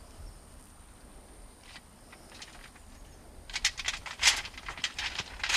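Dry soil crumbling and scratching as fingers rub the dirt off a freshly found arrowhead close to the microphone: a few faint ticks at first, then a quick run of short dry scratches over the last two seconds.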